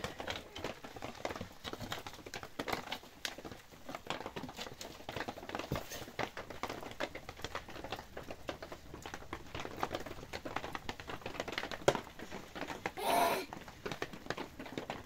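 Charcoal embers being fanned with a plastic tray: a dense run of quick, irregular clicks and ticks. A sharp click comes about twelve seconds in, followed by a short louder burst.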